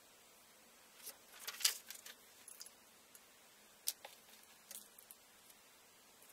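Faint clicks and rustles of small craft items handled on a desk: a cluster of light taps and rustling about a second in, then a sharp single click near four seconds and a few softer ticks after it.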